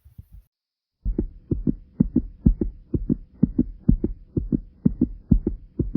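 Fast human heartbeat: low thumps in quick lub-dub pairs, about two beats a second. It is faint at first, drops out briefly, and comes back much louder about a second in, over a faint steady hum.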